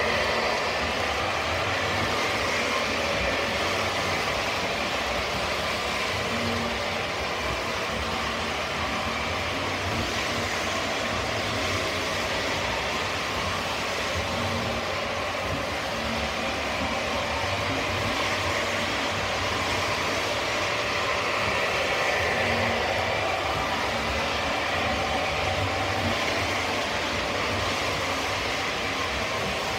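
O scale model trains running on three-rail track: a steady whirring rumble of electric motors and wheels on the rails.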